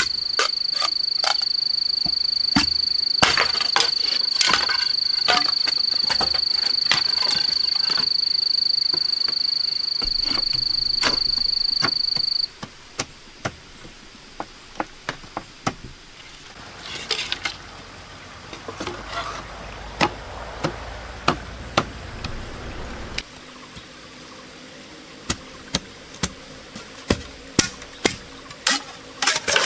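Machete blade chopping into green bamboo poles: sharp, irregular strikes throughout. A loud, steady, high-pitched insect drone runs under the first part and cuts off abruptly a little before halfway.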